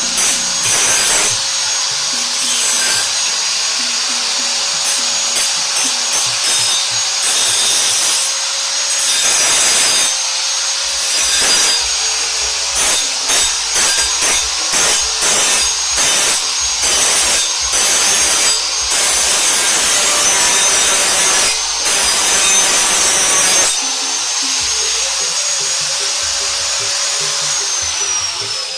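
A power tool running against a hoe's steel blade in repeated uneven strokes, its steady high whine winding down near the end as the motor stops.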